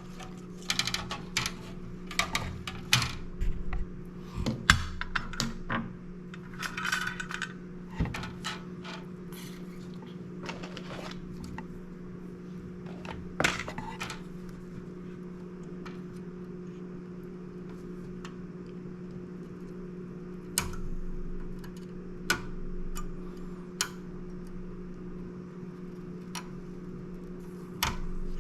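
Small clicks and light clatter of tools and a printed circuit board being handled on a workbench, thickest in the first half, over a steady low electrical hum.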